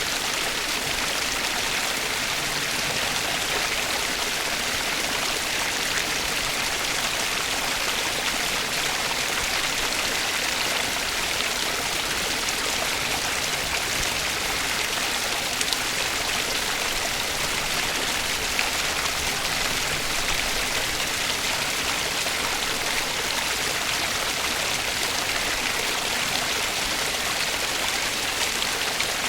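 Water from a pondless waterfall running steadily, splashing and trickling over the rocks.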